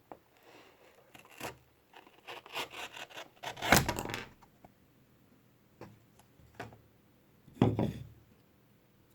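Rubbing and scraping handling sounds, with two louder scrapes about four and eight seconds in.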